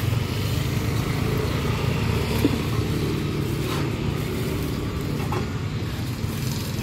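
Street traffic: a steady low rumble of motor vehicle engines running close by, with a few light clicks, the sharpest about two and a half seconds in.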